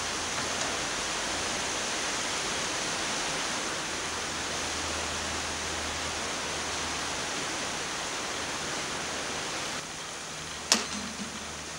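A steady, even hiss that eases slightly near the end, then one sharp click about a second before the end.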